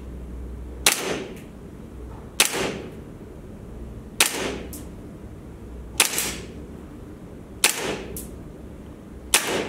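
AW Custom FN M4A1 gas blowback airsoft rifle on green gas firing six single shots, each a sharp crack with the bolt cycling, about one every second and a half to two seconds. A fainter tick follows some of the shots.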